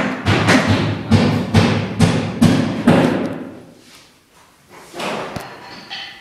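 Footsteps on a bare concrete slab, about two a second, each step a sharp thud with a short echo; they stop about three seconds in.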